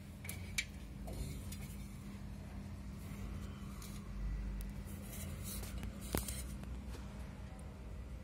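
Light scratching and handling noises against a rough plastered wall, with two sharp clicks, one about half a second in and one about six seconds in, over a steady low hum.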